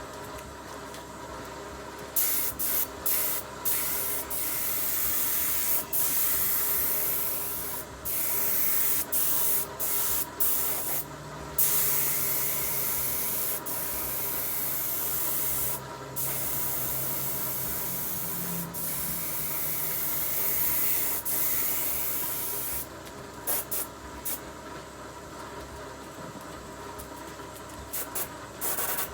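Loud spraying hiss that starts and stops in repeated bursts of one to several seconds, then a quick run of short blips near the end, over a steady background hum.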